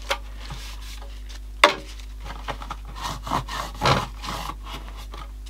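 Cloth and a pointed metal pick rubbing and scraping at the plastic case of a 1960s transistor radio, working grime off it in short uneven strokes, with one sharp tap about a second and a half in.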